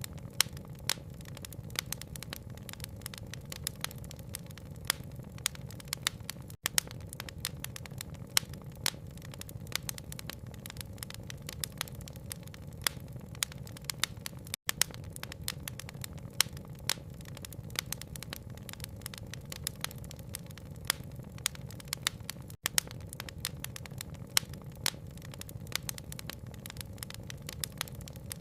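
Wood fire crackling with a dense run of sharp pops and snaps over a steady low rumble, blended with rain. The sound cuts out for an instant three times, about every eight seconds.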